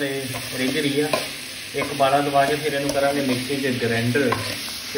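Vegetables sizzling and frying in a kadai, with a voice carrying a tune over it.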